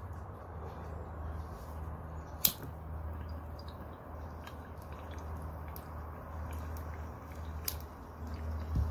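Water bubbling in a glass recycler bong as smoke is drawn through it, a steady low gurgle, with a couple of sharp clicks, the loudest about two and a half seconds in.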